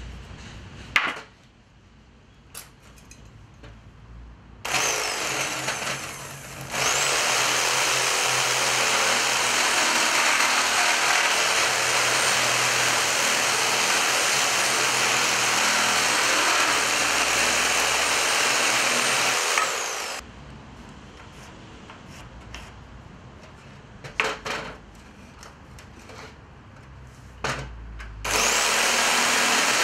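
Cordless reciprocating saw cutting through a hardwood pallet timber. It starts about five seconds in and cuts steadily for about a dozen seconds, with a high motor whine that climbs as it starts and drops as it stops. After a pause with a few knocks, it starts cutting again near the end.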